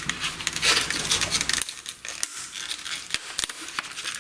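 Retail packaging being torn and pulled open by hand, with irregular crinkling, rustling and tearing and many small crackles throughout.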